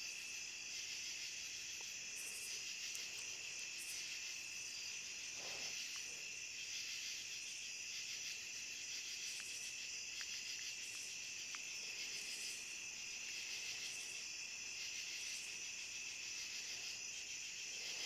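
Night-time chorus of crickets and other insects: steady, overlapping high-pitched trilling, with a brighter, higher buzz recurring every second or two.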